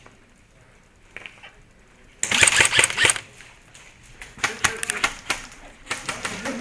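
Airsoft guns firing rapid bursts: a loud burst of fast clicks lasting about a second, starting about two seconds in, then shorter bursts of clicks near the end.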